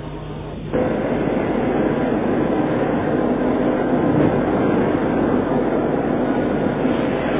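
A low horn note ends less than a second in. A steady, loud train running noise then starts abruptly and carries on.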